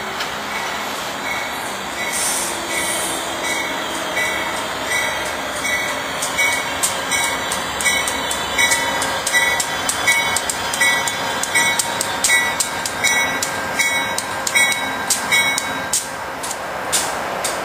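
Bell of an Amtrak GE P42DC Genesis diesel locomotive ringing at an even pace, about three strokes every two seconds, over the steady rumble of the locomotive and train moving past. The ringing stops near the end.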